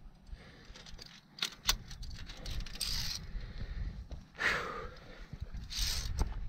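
Via ferrata carabiners and lanyard hardware clinking and jangling on metal, with a few sharp clicks and a low wind and handling rumble on the microphone.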